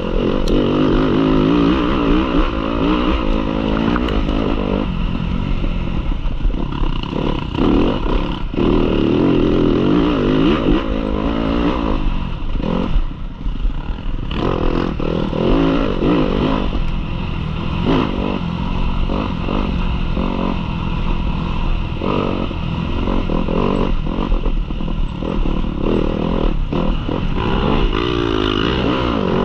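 Yamaha off-road motorcycle engine under race load, its revs rising and falling continually as the rider works the throttle and gears, with brief drops in revs a third of the way in and near the middle, plus some clatter.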